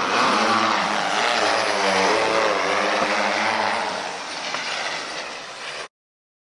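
A motor running with a wavering pitch over a broad hiss, cut off abruptly near the end.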